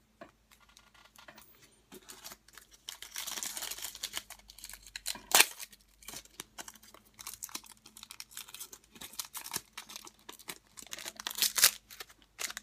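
Foil wrapper of a Panini Unparalleled football card pack crinkling and being torn open by hand, in a run of sharp crackles. The loudest snaps come about five seconds in and again near the end.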